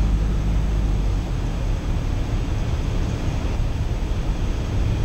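Steady drone of a Cessna 172 Skyhawk's piston engine and propeller in flight, heard inside the cabin.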